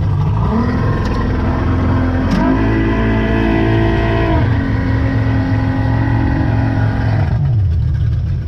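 Speedboat engine revving up in two steps, holding high, then easing back down about four seconds in, and dropping lower again near the end.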